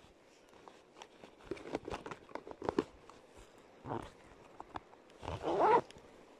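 Close handling noise of fly-fishing tackle in gloved hands: rustles and light clicks, with a short rising squeak-like sound near the end, the loudest moment.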